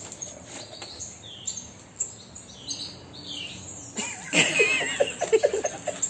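Tap water running into a stone sink with a few faint bird chirps. About four seconds in, a blue-and-gold macaw starts bathing hard, with quick repeated splashing strokes and a warbling chirp over them.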